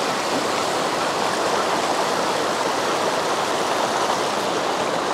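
Steady rush of the Tellico River, a trout stream's flowing water making an even, unbroken hiss.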